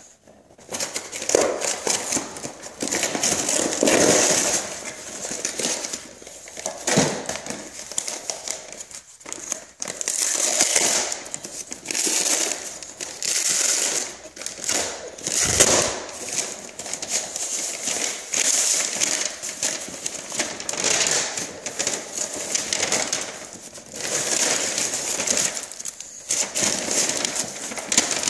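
A USPS Priority Mail flat rate envelope being torn open and crumpled by hand: irregular bursts of tearing and crinkling paper, with a sharp rip about fifteen seconds in.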